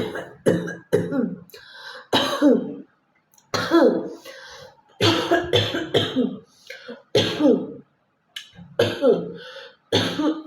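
A woman coughing hard over and over, about a dozen harsh coughs in clusters of two or three with short pauses between, mixed with throat clearing and hawking.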